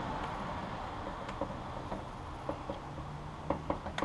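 Light clicks and taps of metal motorcycle engine parts handled by gloved hands while a transmission cover is worked loose, with several quick clicks near the end.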